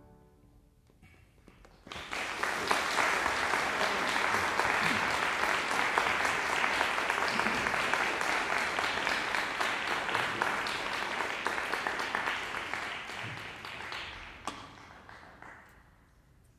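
Audience applauding, starting about two seconds in after the piano's last chord has died away, then dying out near the end.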